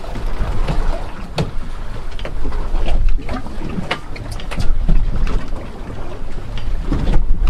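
Wind rumbling on the microphone aboard a small boat at sea, with the wash of water and scattered sharp knocks and clicks.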